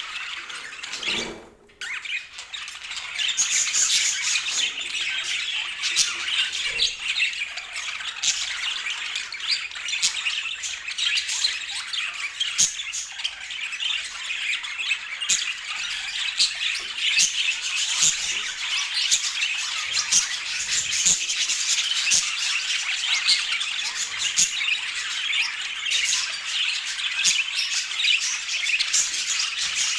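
A group of budgerigars chattering and warbling together: dense, continuous high-pitched twittering with many short sharp chirps and squawks. It briefly drops out about a second and a half in.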